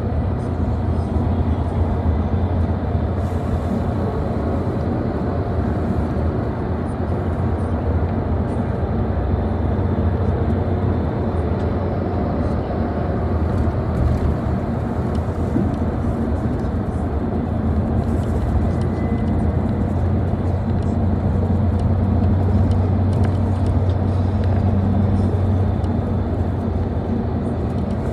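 Steady drone of a moving bus heard from inside the cabin: engine hum and road and tyre rumble. The low hum grows a little stronger about three quarters of the way through.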